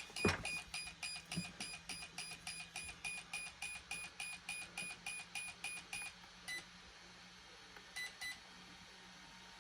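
Brushless RC speed controller (Reedy 60 A ESC) beeping after being switched on with its set button held: the sign that it is entering programming/setup mode. It gives a fast, even run of short high beeps, about four a second, which stops about six seconds in; then come a few slower, lower beeps, one and then a pair. A sharp click comes just after the start.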